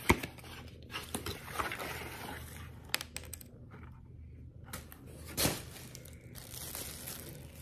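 Cardboard product box being handled, with rustling and scraping as an insulated bottle is slid out of it. A few sharp knocks come through, the loudest right at the start and another about five and a half seconds in.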